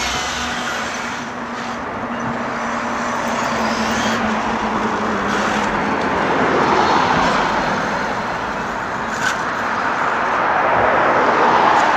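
Road traffic on a street: a steady rush of passing cars that swells twice, about halfway through and near the end. A low hum fades out over the first few seconds.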